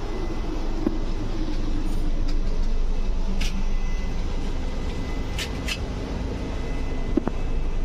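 Steady rumble inside an Indian Railways AC two-tier sleeper coach, with a few short sharp clicks about three and a half and five and a half seconds in.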